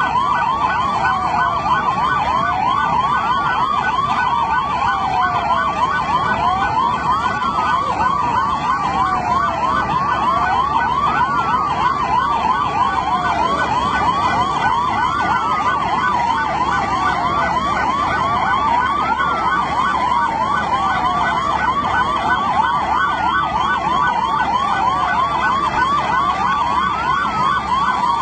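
Emergency vehicle sirens sounding continuously. One yelps in rapid up-and-down warbles. Another wails in slow falling sweeps that repeat every few seconds.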